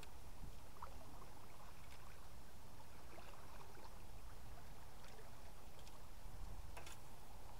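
The River Wharfe in flood, running high and flowing steadily over submerged bankside grass: an even, low rush of water, with one faint click near the end.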